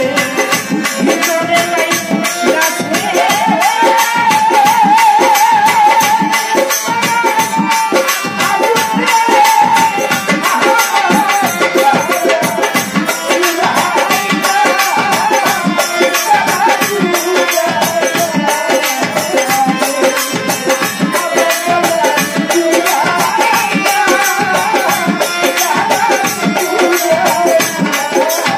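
Live Bengali folk music: a fast, steady hand-drum beat with rattling jingle percussion, under a wavering melody line and a woman's singing.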